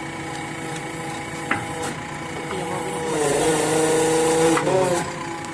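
JCB 3DX backhoe loader's diesel engine idling steadily. About three seconds in, it runs louder with a hiss and a wavering pitch for about two seconds, as the hydraulics are worked, then settles back to idle.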